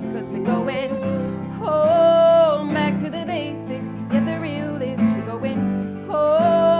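A woman singing long wordless notes with vibrato over a strummed acoustic guitar, in a stripped-down live pop song.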